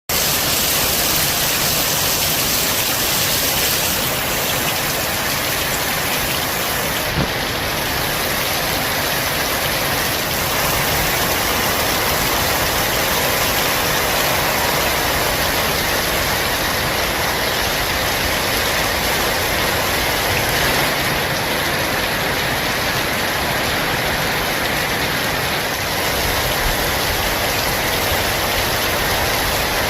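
Steady rain falling, an even, unbroken hiss, with one brief knock about seven seconds in.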